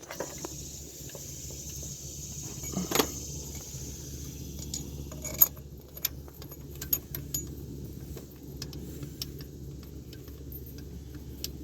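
Light metallic clinks and clicks, scattered irregularly over a steady low hum, like hand tools or keys handled against metal; the two strongest knocks come about three and five seconds in.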